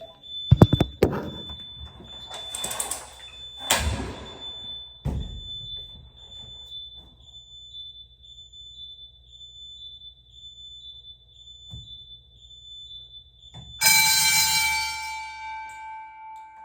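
Clicks and knocks of a fire alarm pull station being handled and activated, under a faint steady high-pitched beep. Near the end a fire alarm sounds briefly: a loud ringing tone that starts suddenly and fades over about two seconds.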